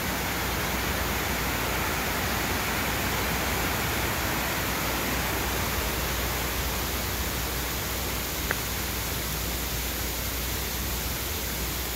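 Steady rush of a fast-flowing river's rapids.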